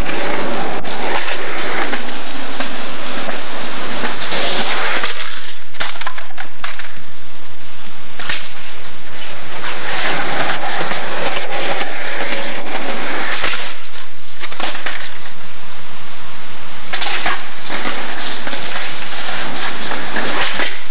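Skateboard wheels rolling loudly over concrete, with scattered sharp knocks of the board on tricks and landings, through a camcorder's microphone.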